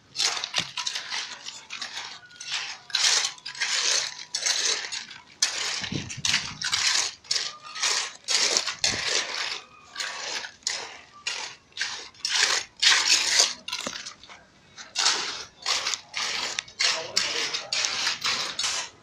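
Hand tool working a freshly laid concrete floor being stamped: a run of short, sharp scraping and tapping strokes, roughly two a second, with brief pauses between them.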